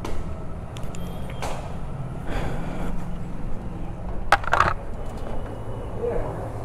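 An engine running at idle, with scattered clicks and knocks over it; the sharpest knock comes about four seconds in.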